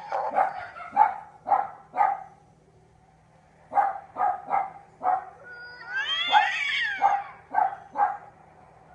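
Cat meowing in a run of short calls, about two a second, with a pause of a second or so partway through, then one longer wavering meow about six seconds in, followed by a few more short calls.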